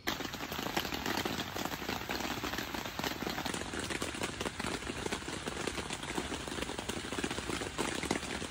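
Rain pattering on the fabric of a tent, heard from inside, with acorns knocking on it. It is a dense, steady patter of many small ticks with scattered louder knocks.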